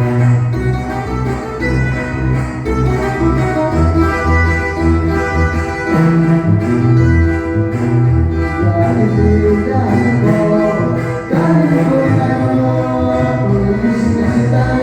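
A live tuba band playing, with the tuba carrying a moving bass line of low held notes under sustained chords.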